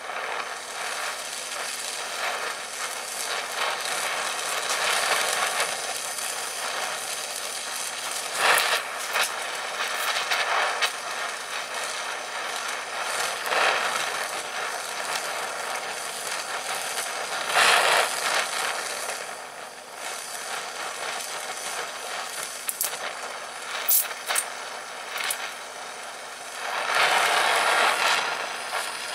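Gas torch flame hissing steadily while heating the cast ear of a starter generator around a broken bolt, swelling louder several times. A few sharp ticks come about three-quarters of the way through.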